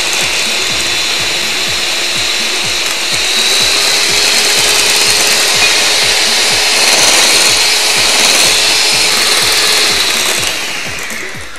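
Electric hand mixer running steadily, its beaters whisking eggs and sugar into cake batter in a bowl. Near the end its whine falls in pitch and it fades as it is switched off.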